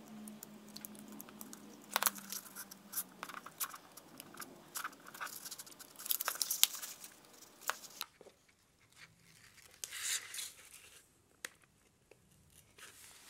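Backing paper being peeled off strips of double-sided tape on a paper model: intermittent small tearing and crinkling noises with light clicks, busier in the first half and sparser near the end.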